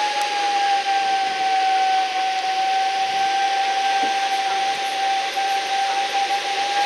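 Blizzard wind rushing past at gale force, with a steady whistling tone that sags slightly in pitch and holds throughout.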